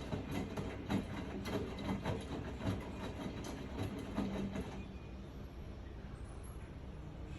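Miele washing machine with an inverter-driven drum motor running during the intermediate spin. For about five seconds there are irregular knocks and rattles over a steady rumble, then it settles to a quieter, steadier running sound.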